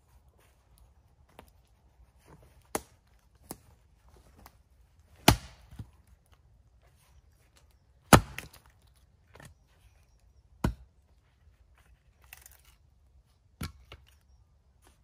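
Small camp axe, an old axe head on a new hickory handle, splitting firewood on a chopping block: about half a dozen sharp chops, the two loudest about five and eight seconds in, with lighter taps between.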